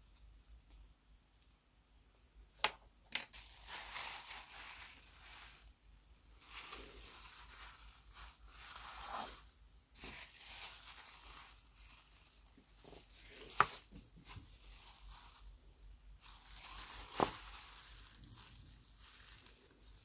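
Clear plastic bags crinkling and rustling in stretches as plastic cups wrapped in them are handled, with a few sharp knocks of things set down on a wooden workbench.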